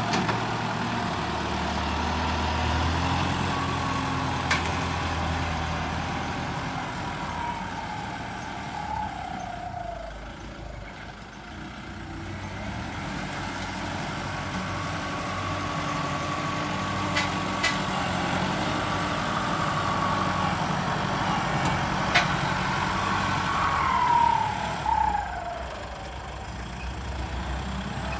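Turbocharged Kubota tractor's diesel engine working under load while blading sand. A high whine falls away in pitch twice as the revs drop, and the engine is quieter for a while in the middle as the tractor moves off and comes back. A few sharp clanks come from the blade and harrow.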